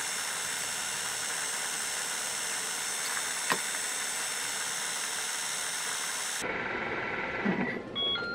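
Thermomix TM31 food processor motor running steadily with a whine, with a single click midway, then cutting off abruptly about six seconds in. A few short electronic beeps follow near the end.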